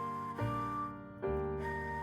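Soft instrumental background music: held chords that move to a new chord about half a second in and again just past a second.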